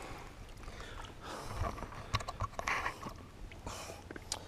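Close rustling and scraping with a few light knocks, in three short bouts, as gear is handled on a fishing kayak.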